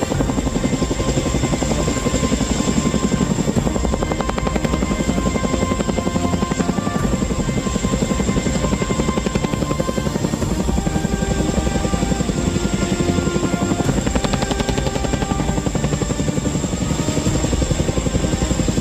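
Boeing CH-47 Chinook tandem-rotor helicopter running, its rotors beating in a rapid, steady chop, with background music over it.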